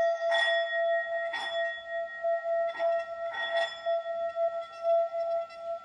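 Singing bowl sung by rubbing a stick around its rim: a steady, sustained ringing of several tones, with a faint scrape that swells about once a second as the stick goes round.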